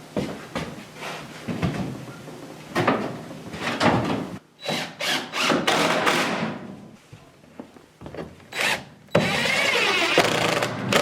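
Cordless impact driver (DeWalt 20V MAX) driving Rock-on screws through cement board into the fireplace frame, in several short runs. The longest run comes near the end and lasts about a second and a half.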